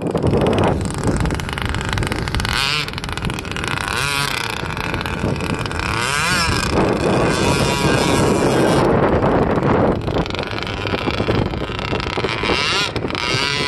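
The 26cc Zenoah two-stroke gasoline engine of a 1/8-scale Proboat hydroplane RC boat running at speed, its pitch rising and falling again and again as the throttle changes.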